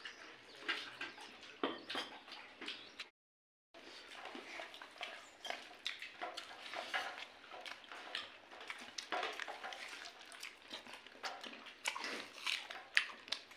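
Close-up eating: irregular chewing and mouth noises with many small clicks as rice and fish curry are eaten by hand. The sound drops out for a moment about three seconds in.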